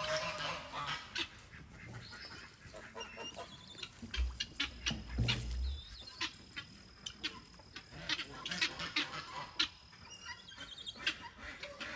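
Farmyard poultry calling, with scattered short calls and clicks over outdoor background, and low rumbles about four to six seconds in.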